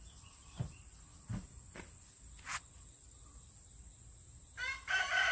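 A rooster crows once near the end, one long call that runs on past the end. It follows a few soft knocks in the first seconds.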